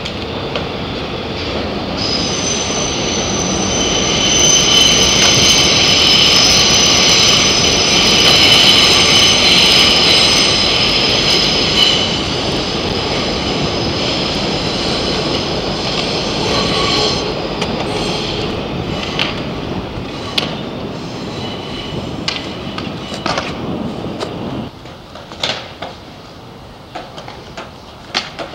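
Elevated subway train passing on the steel el structure: a loud rumble and rattle of the wheels with a high, steady squeal over it, loudest about a third of the way through, then slowly fading. It drops off suddenly near the end, leaving a few sharp clicks.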